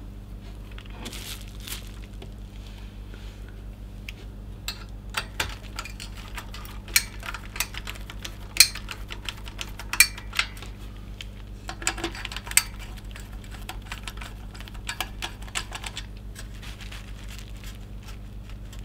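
A screwdriver working the spring-loaded mounting screws of a CPU cooler on a motherboard: scattered small, sharp metallic clicks and taps, busiest in the middle stretch, with a few louder ones.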